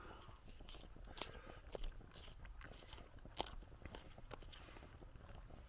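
Faint, scattered small clicks and crunches over a low, steady rumble, with a sharper click about three and a half seconds in.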